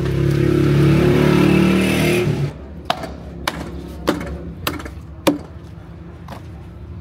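A loud engine-like running sound cuts off about two and a half seconds in. Then a cleaver chops through meat and rib bone on a wooden stump chopping block: five sharp strikes, roughly two a second.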